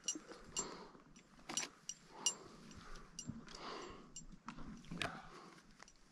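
A climber breathing hard on the move, with repeated light metallic clinks of climbing gear and crampon footsteps in snow.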